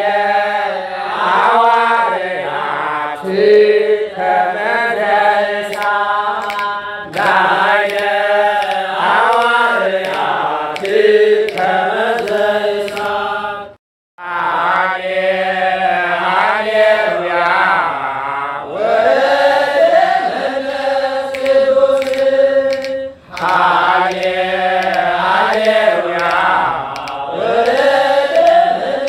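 Ethiopian Orthodox church hymn (mezmur) chanted in Ge'ez, with long, slowly bending melismatic notes. The chant breaks off briefly about 14 seconds in, then resumes.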